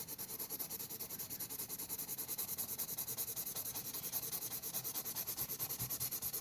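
A colour pencil shading on paper in fast, even back-and-forth strokes, about eight a second, a steady scratchy rubbing.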